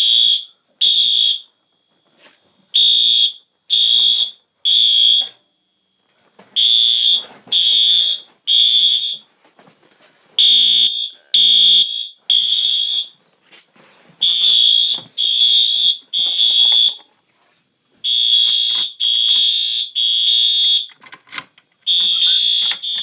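Wheelock AS fire alarm horn strobes sounding in the temporal-three evacuation pattern. There are three short, high-pitched horn blasts, then a pause of about a second and a half, repeating over and over.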